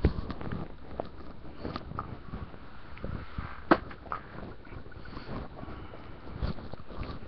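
Handling noise on the device's microphone: scattered rubbing, light knocks and clicks from contact with the device, with one sharper click a little over halfway through.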